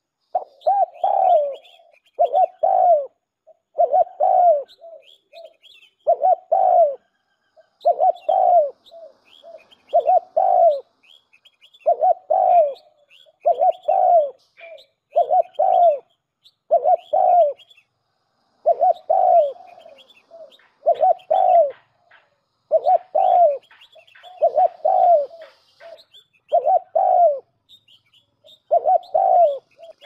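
Pigeon cooing over and over in short phrases of two or three coos, one about every two seconds, with faint higher chirps in between.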